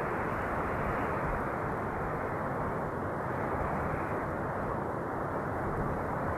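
Steady wind blowing, a dull even rush that swells and eases slowly over a few seconds, with no sharp gusts.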